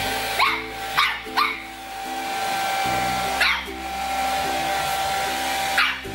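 Small puppy yapping at a running hair dryer: five short, sharp barks, three quick ones in the first second and a half, then one at about three and a half seconds and one near the end, over the dryer's steady whir.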